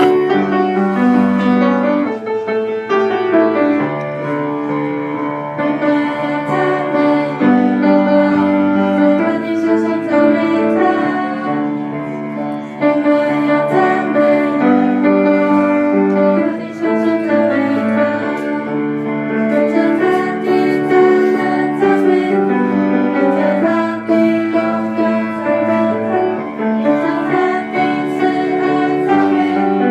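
Grand piano accompanying a hymn, with a group of young voices singing along.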